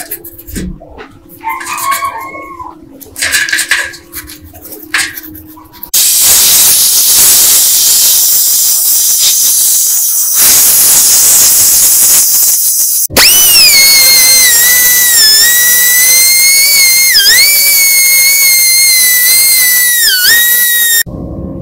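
A toothbrush scrubs a small pistol part in a tray of water in short strokes. This gives way to a loud, steady hiss of a compressed-air blow gun for about seven seconds. Then a pneumatic die grinder runs with a high whine, its pitch dipping three times as the grinding stone is pressed against the part.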